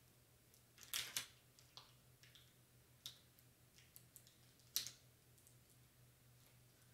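Clear plastic transfer tape with vinyl letters being handled, crinkling and crackling in short scattered clicks, sharpest about a second in and again near five seconds.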